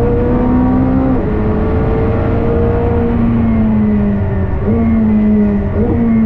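Sports car engine under hard acceleration on a race track, its pitch climbing steadily through the gears, with quick gear changes about a second in and twice near the end, over a steady low rumble of road and wind noise.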